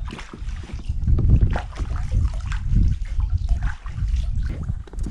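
Wind rumbling on the microphone in irregular gusts, over light water splashing and trickling against a kayak hull.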